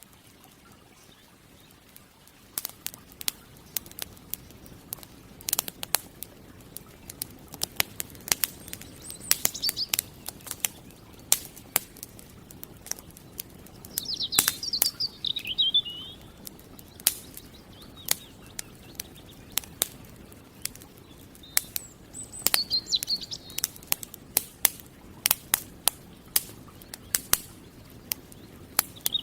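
Campfire crackling, with irregular sharp pops and snaps over a low hiss of burning wood, the crackle setting in about two seconds in. Songbirds call a few times in short chirping phrases that fall in pitch.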